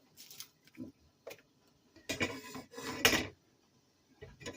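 Kitchen dishes and utensils being handled on a counter: a string of separate clinks and clatters, the loudest two about two and three seconds in.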